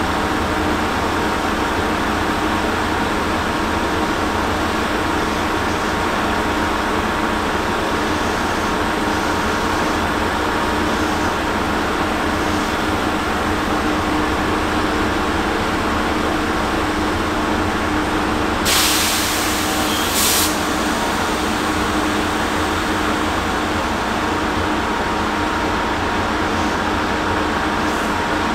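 Chichibu Railway electric train standing at the platform, its onboard equipment running with a steady hum and a held tone. About two-thirds through come two short hisses of released air, the first longer.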